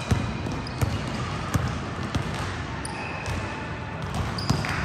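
Basketballs bouncing on a gym floor: sharp thuds, roughly one every half second to second, over a steady background noise. Short high squeaks come in a little after halfway and again near the end.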